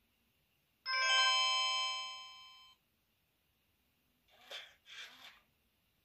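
BLT V998 dual-screen mobile phone's speaker playing a short chime-like ringtone, many bell tones sounding together, fading for about two seconds before cutting off suddenly. Two brief scratchy noises follow near the end.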